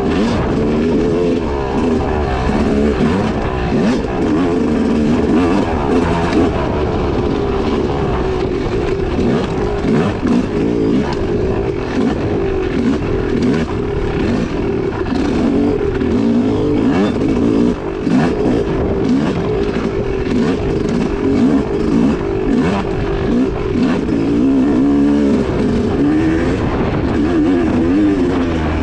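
Single-cylinder two-stroke engine of a 2016 Yamaha YZ250X dirt bike revving hard off-road, its pitch rising and falling constantly through throttle changes, with scattered knocks from the rough ground.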